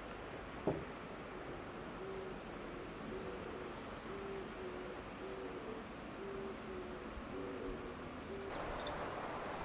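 A bird hooting in the distance: short, low notes repeated in pairs, with faint high chirps of another small bird over them. A single soft knock comes shortly after the start.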